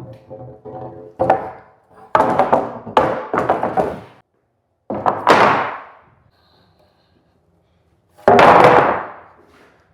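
Wooden boards being handled, knocking and clattering against each other and a hard surface, a series of hollow thunks with short ringing tails, the loudest one near the end.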